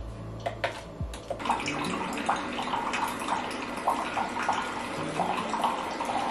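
Ninja single-serve pod coffee maker brewing into a mug: a few clicks, then from about a second and a half in a steady stream of hot water pouring and gurgling into the cup.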